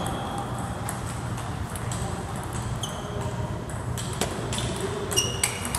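A table tennis ball being struck back and forth by rubber paddles and bouncing on the table during a fast rally: a series of sharp clicks, some with a short high ring.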